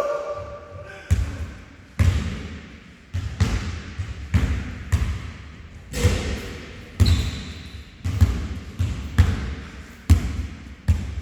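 A basketball bounced repeatedly on a gym floor, at about two bounces a second in an uneven rhythm, each bounce echoing in the hall. A brief high squeak comes about seven seconds in.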